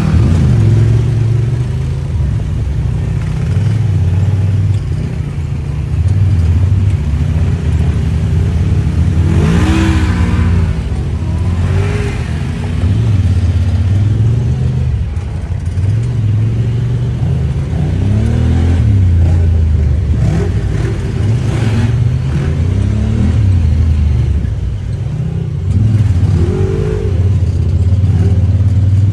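Side-by-side UTV engines running and revving, the pitch rising and falling several times, with the strongest rev about ten seconds in.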